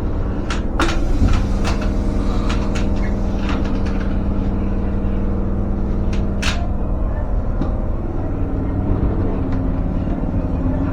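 Tobu Kameido Line train running along the track: a steady rumble with a steady hum and irregular sharp clicks from the wheels and rails.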